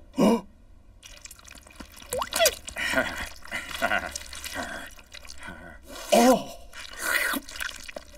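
Cartoon wet dripping and squelching sounds of pink goo being dabbed off a face with a handkerchief, in separate short bursts, some with a short sliding pitch.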